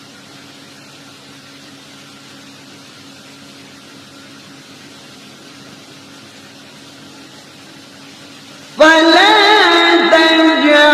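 A steady low hum and hiss for most of the time. Near the end a loud solo voice suddenly starts chanting a Quranic recitation, in a melodic style with long held, ornamented notes.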